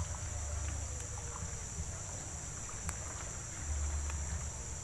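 Wind rumbling on the microphone over a steady, high-pitched insect chorus, with a couple of light clicks.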